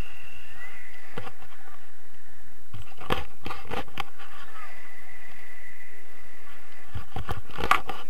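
Airflow rushing over an action camera's microphone during a tandem paraglider flight, with gusts buffeting the microphone about three seconds in and again near the end.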